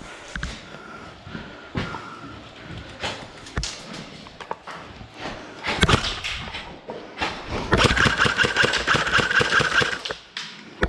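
Airsoft gun firing: scattered single shots and clicks, then a rapid full-auto burst of about two seconds near the end, a fast rattle over a steady motor whine.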